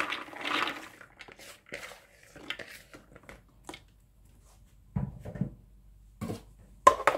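Soaked, drained black-eyed peas pouring and rattling into a plastic food processor bowl, dying away within the first second into scattered small taps. A few dull knocks follow about five seconds in, and a sharp click near the end.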